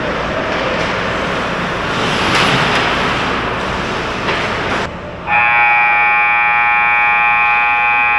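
Skates scraping and rink noise while play goes on. About five seconds in, the ice rink's electric scoreboard buzzer sounds one steady, loud blast that holds to the end, marking the end of play as the game clock runs out.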